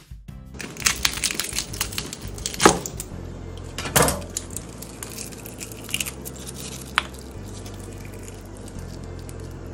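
Crispy baked wrap crackling and crunching as it is broken apart by hand: a run of small crackles with two loud crunches about two and a half and four seconds in, then a few fainter cracks.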